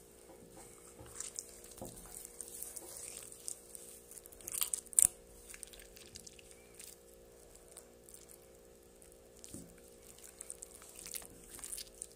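Homemade slime being kneaded and squeezed in the hands, giving sticky squelches and small crackling pops. The pops come in irregular clusters, loudest about five seconds in.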